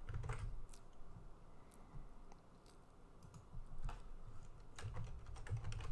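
Scattered keystrokes on a computer keyboard as a password is typed, with a quieter gap about two to three seconds in.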